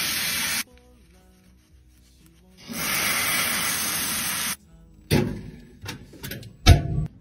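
Tap water pouring onto an open plastic compact case, in two stretches, about half a second at the start and about two seconds in the middle. Then a few light clicks and knocks as the plastic case is handled at a glass jar, the loudest a heavy knock near the end.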